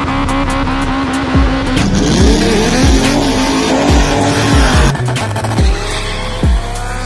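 A car's engine revving and tyres squealing, mixed with music that has a steady low bass line.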